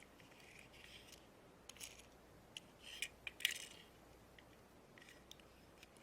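Faint clicks and light rustling of hands handling a plastic surprise egg and a small toy car. A cluster of sharper clicks and a brief scrape about three and a half seconds in is the loudest.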